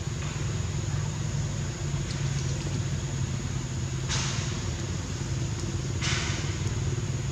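A steady low motor hum, with two short bursts of hiss about four and six seconds in.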